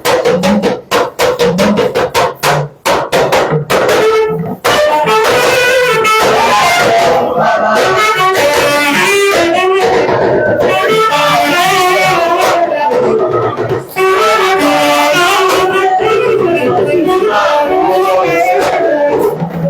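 Loud music: a quick run of sharp percussive hits for the first few seconds, then a wavering melodic lead line over accompaniment.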